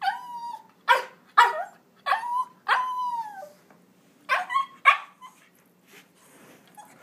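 Papillon yipping and whining: about seven short high calls over the first five seconds, several sliding down in pitch, then it goes quieter.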